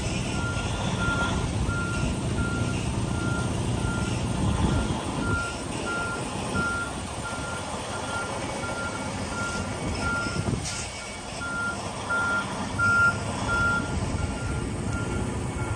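Semi-truck's backup alarm beeping steadily at one pitch, a bit more than once a second, over the low running of the diesel engine as the tractor backs its trailer into a loading dock. A short burst of noise comes about eleven seconds in.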